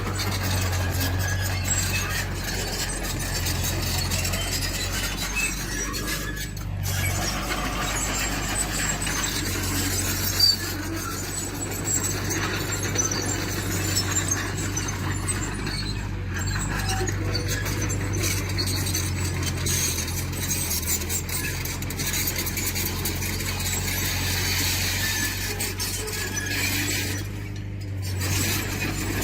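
Diesel earthmoving machinery running steadily with a low engine hum. Scattered high metallic clinks and scraping run over it, with one sharp knock about ten seconds in.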